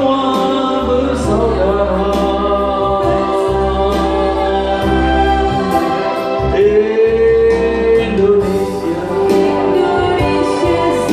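A man and a woman singing a duet through microphones over instrumental accompaniment with a steady bass line, including a long held note about two thirds of the way through.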